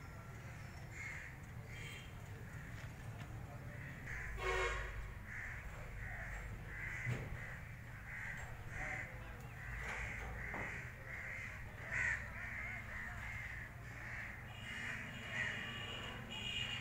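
A bird calling over and over in short calls, about two to three a second, with one louder call about four seconds in, over a steady low hum.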